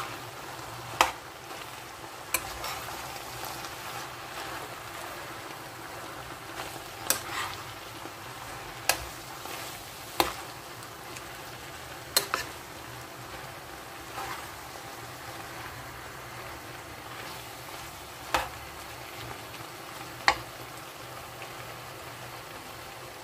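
Spinach and bell pepper vegetable sauce sizzling steadily in a large pan while being stirred, with a utensil knocking sharply against the pan about nine times at irregular intervals.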